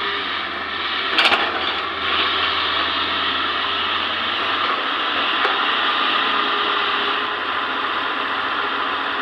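Hitachi ZX200 excavator working, its engine and hydraulics making a steady din. A short burst of sharp cracks comes about a second in, with a single crack past the middle.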